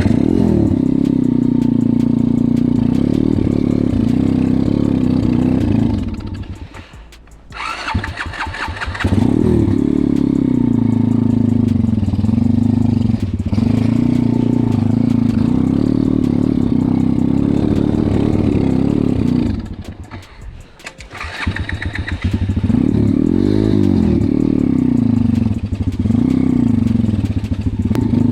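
140cc pit bike engine running and revving up and down. Twice the engine sound drops away for a second or two, about six seconds in and again near twenty seconds, then picks back up.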